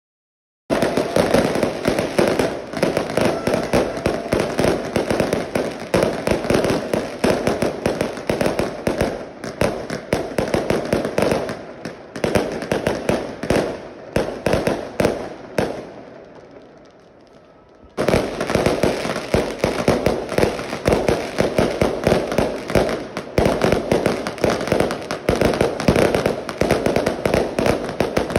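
Dense, rapid popping and banging of many fireworks and firecrackers, starting about a second in. It thins out to faint crackling a little past the middle, then comes back at full strength all at once.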